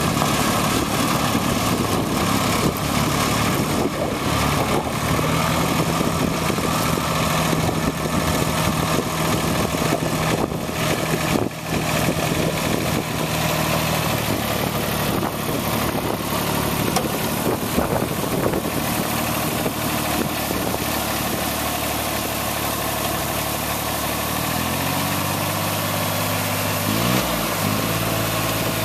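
1990 Laymor 6H road sweeper running, its engine turning over steadily while the rotary broom scrubs the pavement with a constant brushing hiss. Near the end the engine speed shifts up and down a few times.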